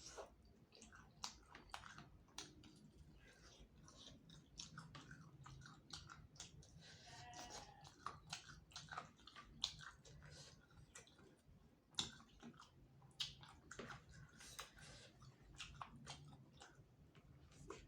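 Close-up chewing of spicy chicken heads with soft bones: a steady run of short crunches and mouth clicks as the bones are bitten through.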